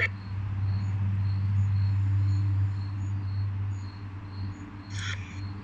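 A loud, steady low hum that fades out about four seconds in, with faint crickets chirping at an even pace throughout. There is a short crackle near the end.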